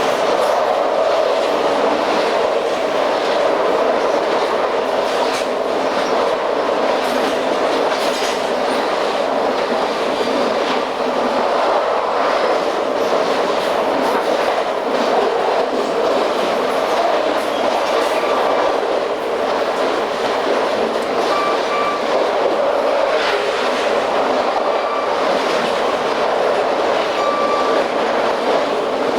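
Amtrak passenger train in motion: a steady running rumble of the cars on the track, with irregular clicks of wheels over rail joints and a few brief wheel squeals.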